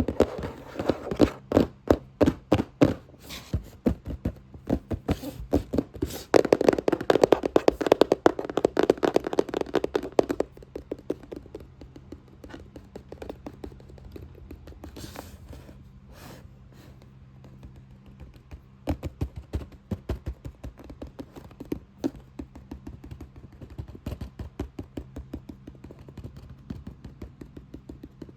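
Fast, hard tapping on a box, a dense rapid run of taps. About ten seconds in it drops to softer, sparser sounds, and it picks up again about two-thirds of the way through.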